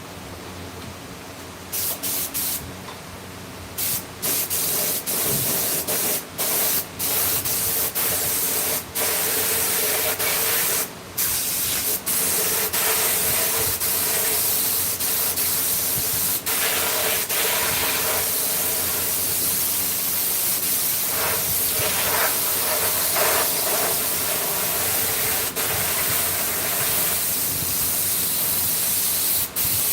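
Compressed air hissing from an air tool in long bursts. It starts about two seconds in, is cut off briefly several times in the first half, then runs almost unbroken.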